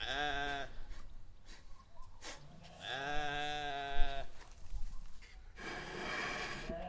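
Farm animal bleating twice: a short wavering call at the start, then a longer, steadier call about three seconds in. A steady hissing noise follows near the end.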